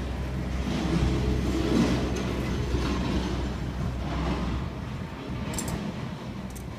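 A steady low engine rumble, like a passing motor vehicle, dies away about two-thirds of the way through. Two faint clicks follow near the end.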